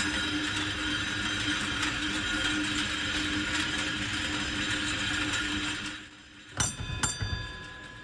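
Cable-tramway haulage cable running steadily over its pulleys in the conduit, a mechanical running noise with a steady hum, fading out about six seconds in. Then two sharp strikes a little under half a second apart, each ringing on briefly.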